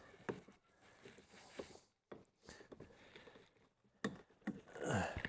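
Light clicks and rustling of a plastic trim cover being handled and pressed into place on a car door panel, with a few sharper snaps from about four seconds in and the sharpest at the very end.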